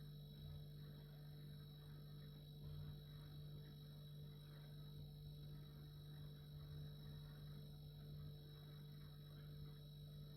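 Refrigerator running: a faint, steady low hum with a thin steady tone above it, unchanging throughout.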